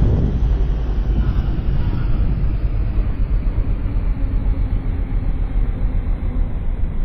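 Honda CG 125's air-cooled single-cylinder four-stroke engine running steadily while riding, with a constant low road rumble.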